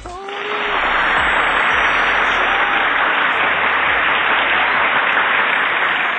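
Studio audience applauding loudly as the song ends. The applause swells in within the first half second over the last sung note and then holds steady.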